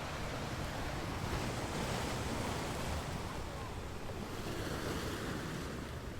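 Sea waves washing on a beach, a steady surf rush that swells and eases gently, with some wind on the microphone.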